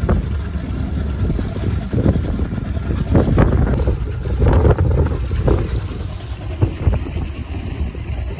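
Wind buffeting the microphone in irregular gusts over a steady low rumble of a boat out on the water.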